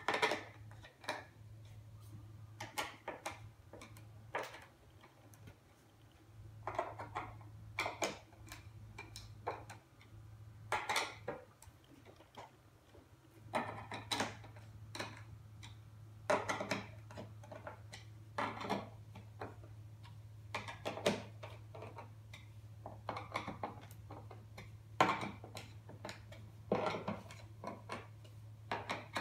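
Hand screwdriver turning small screws into wooden display panels: short bursts of clicking and scraping every second or two, with the panels knocking on the table, over a steady low hum.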